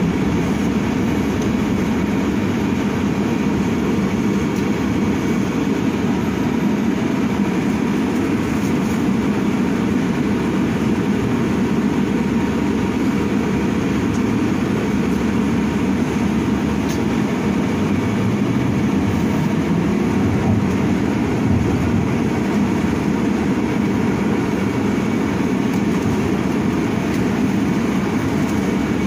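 Cabin noise of an Ursus CS12E battery-electric city bus on the move: a steady low rumble of tyres and running gear, with a faint, steady high tone on top.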